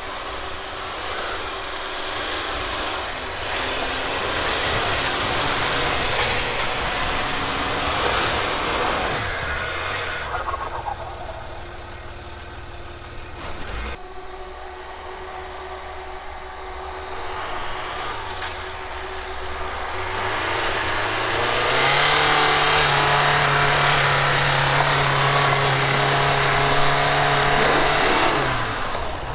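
SUV engines revving under load as the Land Rover Discovery 3 and the Dacia Duster climb a snowy slope, the revs rising and falling. From about two-thirds of the way in, an engine holds high, steady revs for several seconds, then drops away near the end.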